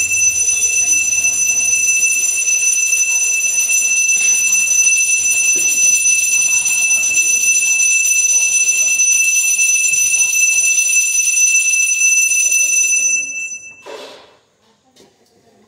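Temple bell ringing continuously, a loud, steady, high metallic ringing that stops near the end and dies away, followed by a single clank.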